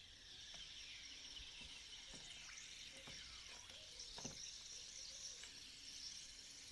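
Near silence: a faint steady high hiss with a few soft clicks scattered through it, the clearest a little past the middle.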